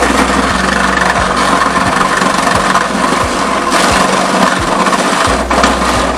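Power tool cutting into a van's sheet-metal body, a loud, steady, grating noise.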